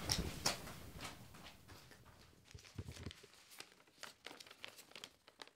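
Faint footsteps and small knocks fading away as people walk out of a small room, with a few low thumps about three seconds in, then scattered soft ticks and rustles.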